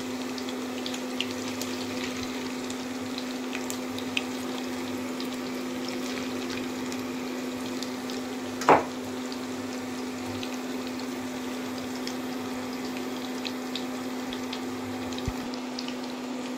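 Chicken pieces shallow-frying in oil in a non-stick pan: a steady sizzle with scattered small crackles over a steady low hum. One brief louder knock or scrape a little past halfway.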